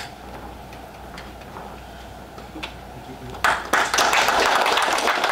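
A few faint taps in a quiet room, then audience applause starts about three and a half seconds in: many hands clapping at once.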